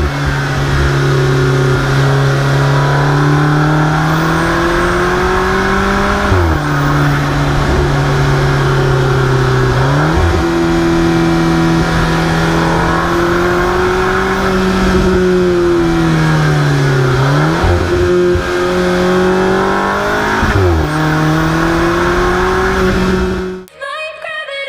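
Alfa Romeo 4C's turbocharged 1.75-litre four-cylinder engine driven hard, its note rising and falling several times as the car speeds up and slows. About a second before the end it cuts off and electronic music starts.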